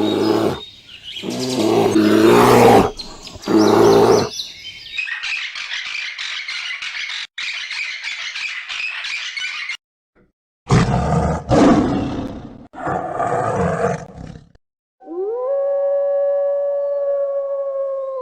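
A series of separate wild animal calls. First come several deep, rough roars. Then a fast, even rattling chatter lasts about five seconds. More roars follow, and a long, smooth howl that rises and then holds starts near the end.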